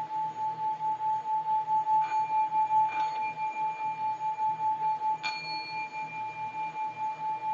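Tibetan singing bowl ringing with one steady tone that wavers in loudness about three times a second. It is struck again around 2 and 3 seconds in, and more sharply just after 5 seconds, each strike briefly brightening the higher overtones.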